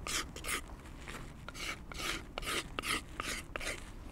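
A Mora knife blade scraping the factory lacquer off the wooden handle of a Juco 400 g hatchet, in about ten quick, rhythmic strokes, roughly two or three a second, that stop just before the end.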